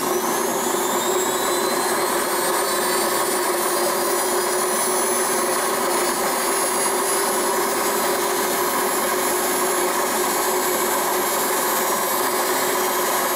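Homemade lathe running under its electric motor, a whine with several steady tones that rises as it comes up to speed in the first second or so, then holds steady. The cutter is taking one light finishing pass along a steel bolt to make it even.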